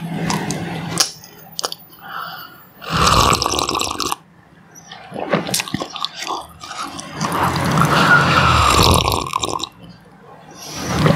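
Close-miked slurping sips of tea from a mug: one slurp about three seconds in lasting about a second, then a longer one from about seven seconds to near the end, with small mouth clicks and swallows between.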